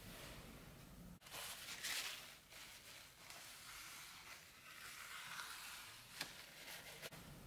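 Faint rustling and crinkling of plastic as hands grip and handle a white plastic dessert tray, with two short sharp clicks near the end.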